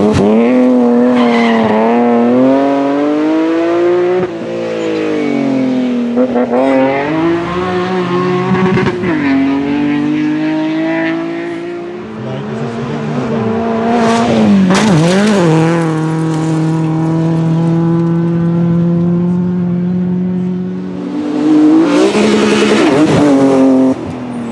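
BMW rally car engine under hard acceleration, its pitch climbing through each gear and dropping sharply at the shifts. In the second half it holds steady high revs for several seconds, then comes loud and close near the end.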